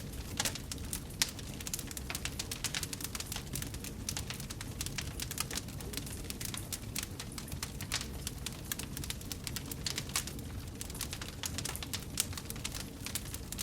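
Wood fire burning in a fireplace, crackling with many small, irregular sharp pops over a steady low rumble of the flames.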